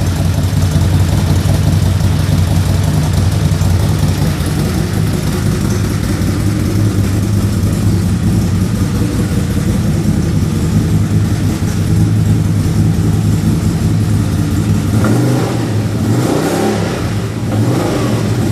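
A CFMoto ZForce 800's 800cc V-twin idling steadily through its stock muffler, then revved briefly a couple of times near the end.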